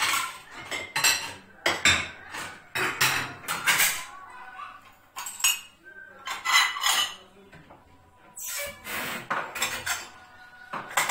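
Dishes and cutlery clinking and clattering in quick, irregular knocks as a dishwasher is unloaded, with a longer scrape about eight seconds in.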